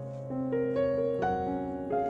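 Soft background piano music: single notes struck one after another in a slow melody, each ringing on, over a steady low tone.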